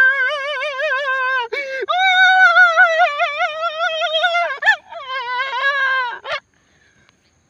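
A high voice singing long, wavering held notes in three phrases, with no backing music. It breaks off abruptly about six seconds in.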